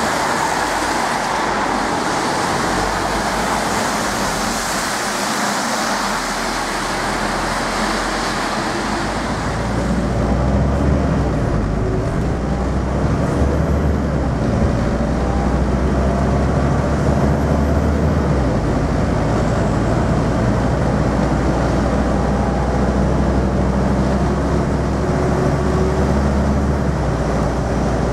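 For about the first nine seconds, road traffic hissing past on a wet road. Then, heard from inside on the upper deck, the Scania N230UD's diesel engine drones steadily as it works hard. The engine note steps twice later on.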